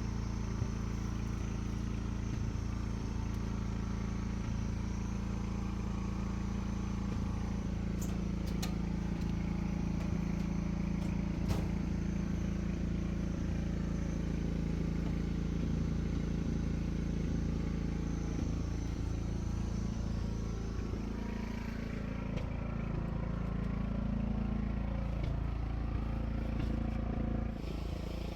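An engine running steadily at a constant speed, with a few sharp clicks near the middle.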